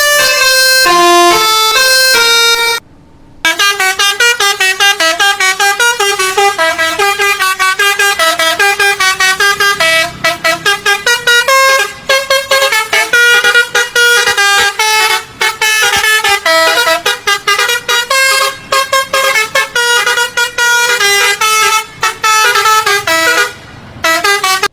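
Indonesian 'telolet' Basuri multi-tone bus horn playing a rapid tune of short stepped notes. It breaks off briefly about three seconds in, then plays on and stops at the end.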